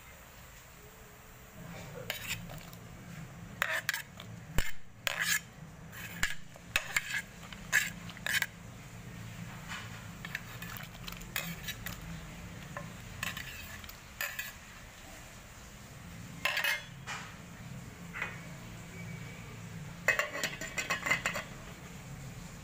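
Plates and a spoon clinking and knocking against an aluminium cooking pot as sliced vegetables and tomatoes are tipped in, in scattered bursts; a quick run of metal clinks near the end as the pot's lid is set on. A low steady hum runs underneath.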